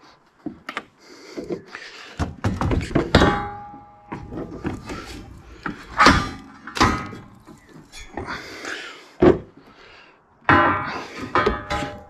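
Heavy quarter-inch steel sawmill track rails being shifted and set down on a wooden shipping pallet: an irregular series of thunks and metal clanks, several of them ringing briefly.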